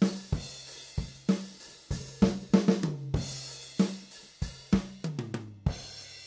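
Multitrack drum kit recording playing back with no effects: kick, snare and hi-hat in a steady groove, with a quick run of hits falling in pitch near the end.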